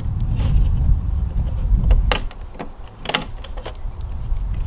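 Wind rumbling on the microphone, easing a little past halfway, with a few sharp clicks and taps as a sheet of wax foundation is pressed into the groove of a wooden Langstroth frame.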